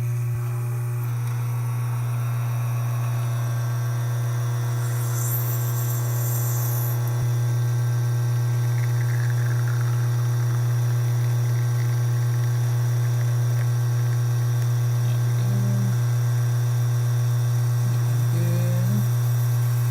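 Alex espresso machine's vibratory pump buzzing steadily while pulling an espresso shot through the E61 group, with no leaking. There is a faint brief hiss about five seconds in.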